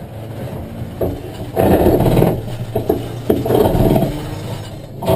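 Car engine running with the revs surging up and down: loud surges about a second and a half in and again around three and a half seconds, over a steady low drone.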